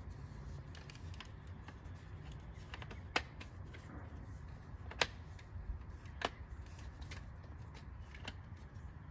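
Plastic clips of a BMW X5 kidney grille and its black backing housing clicking as the parts are handled and pressed together: three sharp clicks a second or two apart, with fainter ticks, over a steady low rumble.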